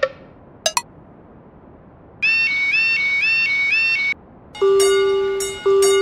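Railroad level-crossing warning alarms, electronic: a brief double click, then about two seconds of a fast repeating warbling beep, then a steady pitched alarm tone that sounds in roughly one-second pulses with short gaps.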